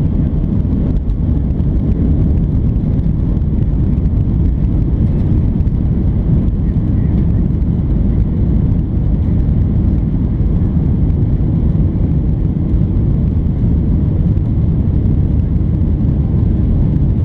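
Cabin noise of a Boeing 737-800 at takeoff: its CFM56-7B jet engines at takeoff thrust, heard from inside the cabin as a steady, loud, deep noise while the airliner lifts off and climbs.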